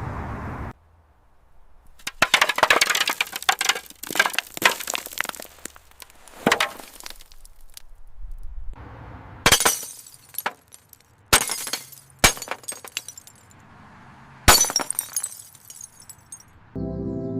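Glass breaking and crunching: a run of crackling and tinkling, then several sharp crashes of shattering glass. Steady ambient music comes in near the end.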